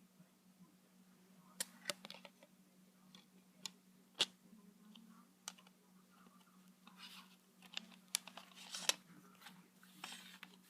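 A plastic CD case and its packaging being handled, giving faint scattered clicks, taps and short crinkles. The sharpest clicks come about four seconds in and near the end.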